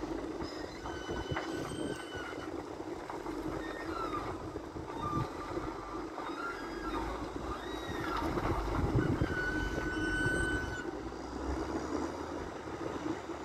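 Caterpillar wheel loader's diesel engine working as it lifts and tips a bucket of rock into a dump truck, a steady drone with low rumble that swells about eight seconds in. Several short high squeals ring out over it.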